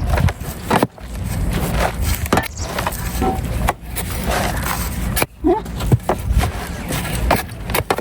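Dirt being scooped and poured into planter bags: scraping and scattered knocks over a steady low hum.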